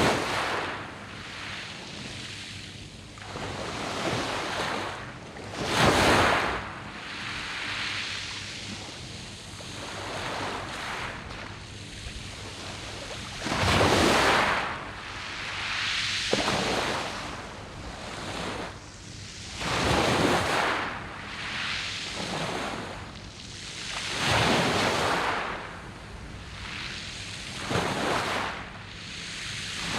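Sea waves breaking on a round-pebble beach, surging in and drawing back every few seconds, with the biggest surges about six, fourteen and twenty seconds in.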